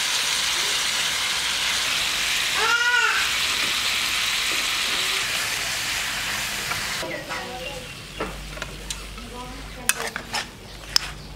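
Chicken frying in a wok, a steady sizzle that cuts off suddenly about seven seconds in. After that, a metal ladle clinks and scrapes a few times against the wok and a steel platter as the cooked chicken is served out.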